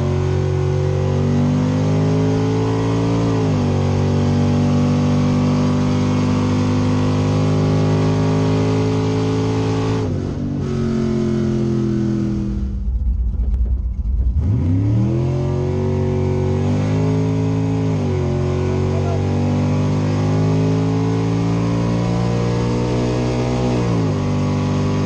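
1964 Chevrolet Impala's small-block V8, a 400 destroked to 377 cubic inches, heard from inside the cabin under hard acceleration: the engine note climbs and drops back at gear changes about 2 and 3.5 seconds in, then holds high revs. Around 10 seconds in the throttle is lifted and the engine falls away, then about 14 seconds in it revs up again through more gear changes.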